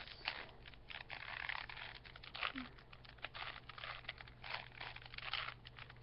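Plastic 3x3 Rubik's cube being turned by hand: an uneven run of small clicks and clacks as its layers are rotated.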